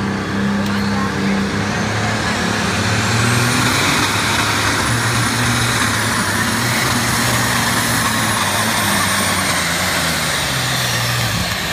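Pulling tractor's engine running hard as it drags a weight-transfer sled down the dirt track: a loud, steady engine noise with a high whine that climbs in pitch a few seconds in.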